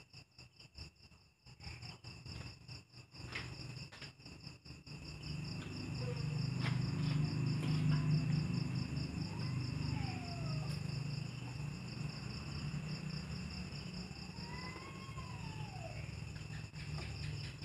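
Crickets chirping in a steady, fast-pulsing high trill. A low rumble swells up through the middle and is loudest about halfway through, and two faint rising-then-falling cries come in the middle and near the end.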